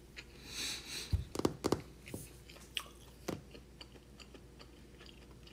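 A person chewing a mouthful of rice wrapped in roasted seaweed (gim) close to the microphone, with soft crunching and small clicks, and a few sharper knocks about a second and a half in and again past three seconds.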